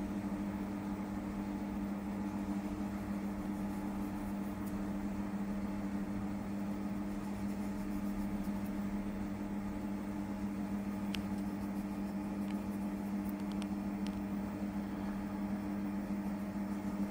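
Steady electrical hum of an appliance motor, with a faint hiss and a few faint ticks in the second half.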